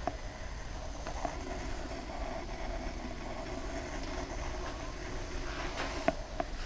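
A steady low rumble with a faint hum, broken by a few sharp clicks as someone walks with a handheld camera across a bare floor: one click at the start, one about a second in, and two close together near the end.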